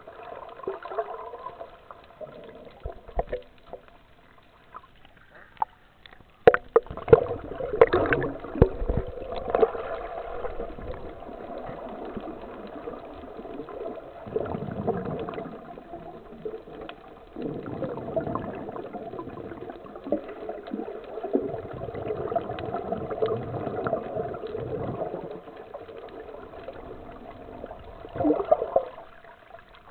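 Muffled underwater water noise at a submerged camera: gurgling and sloshing that swells and fades, over a steady hum, with a few sharp knocks about six to nine seconds in.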